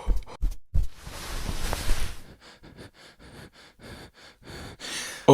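Hand-made foley sound effects for a silent film. A few low thumps come first, then about a second of hissing noise, then a run of short breathy strokes about three a second. It ends in one sharp, loud knock.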